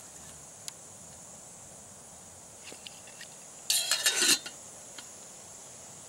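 Metal camp kettle being handled and set onto a small canister stove: a few light clicks, then a short clattering scrape of metal on metal, lid and pot, lasting about half a second a little past halfway. A steady high-pitched hiss runs underneath.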